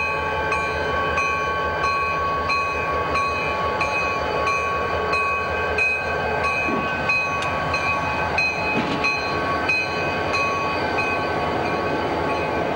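Diesel locomotive bell ringing steadily, about three strikes every two seconds, over the low rumble of the EMD diesel locomotive running as it moves slowly along the track.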